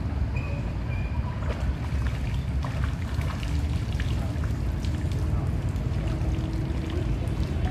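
Floodwater flowing and trickling among tree trunks, with many small drips and splashes over a steady low rumble.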